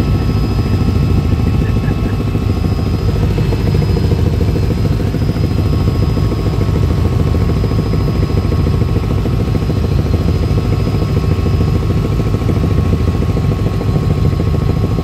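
Helicopter in cruising flight heard from inside the cabin: a loud, steady drone of engine and rotor with a faint even pulsing, and thin steady high whine tones over it.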